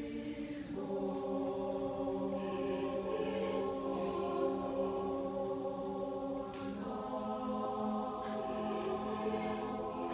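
A choir singing long held chords, moving to a new chord about a second in and again around seven seconds in.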